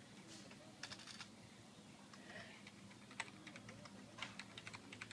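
Faint typing on a computer keyboard: scattered keystrokes, a few about a second in and a quicker run near the end, over a steady low electrical hum.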